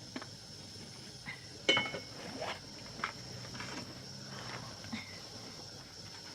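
Scattered light knocks and clinks of hard objects being handled. The loudest is a sharp clink with a short ring, about a second and a half in.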